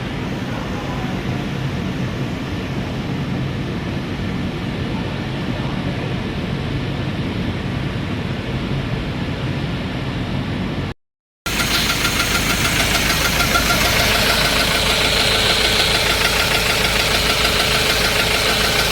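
Ford Ranger engine running at idle, a knocking engine that blows white smoke and has coolant mixed into its oil. It cuts out briefly about 11 seconds in, then runs on louder and brighter with a fast, even beat.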